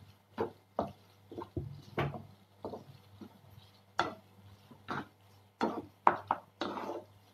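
Wooden spatula stirring and scraping paneer bhurji around a metal pan, making irregular knocks and scrapes about two a second.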